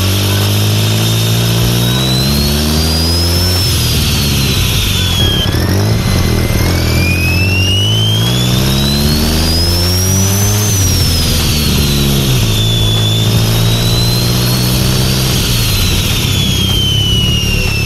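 Turbocharged Nissan 240sx KA24DE engine pulling through the revs. The engine note climbs and drops several times with gear changes and lifts, and the turbo's whistle rises and falls with it, its longest climb about halfway through. It runs without the ignition breakup that retarding and adjusting the timing cleaned up.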